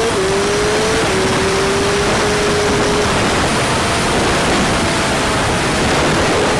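Honda CG125 single-cylinder four-stroke engine pulling through two quick upshifts early on, then held at a steady note that sinks under a loud steady rush of wind about three seconds in.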